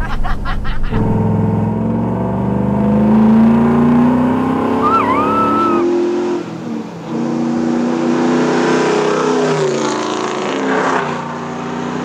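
Ford 5.0 L Coyote V8 in a 1960 Ford F250 accelerating hard, its pitch climbing as it winds up through a gear; it drops about six seconds in, climbs again and falls away. A short whistle-like chirp sounds about five seconds in.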